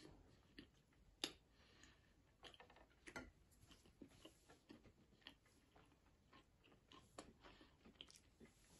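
Near silence with faint scattered mouth clicks and small crunches from chewing crusty sesame bread (simit), with a few sharper ticks.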